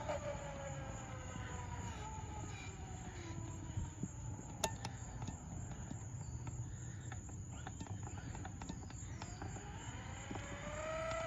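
Brushless electric motor whine of a Traxxas Maxx RC monster truck on a 4S LiPo, falling in pitch and fading as the truck coasts down after a full-throttle pass. Near the end the whine rises again as it accelerates.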